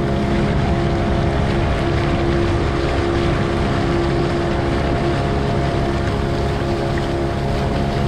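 Outrigger fishing boat's engine running steadily at cruising speed, mixed with a steady rush of wind and water.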